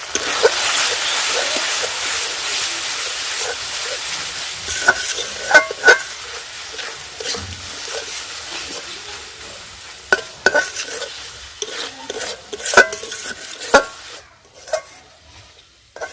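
Spiced masala paste (onion, garlic, ginger, cumin, turmeric and chilli powder) sizzling in oil in a pan as a spatula stirs it, knocking and scraping against the pan again and again. The sizzle fades and drops away near the end, as the masala cooks down.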